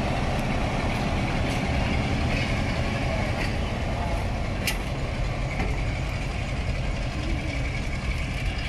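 British Rail diesel locomotive running as it hauls coaches out of the station, with a steady low engine rumble. A sharp click is heard about halfway through.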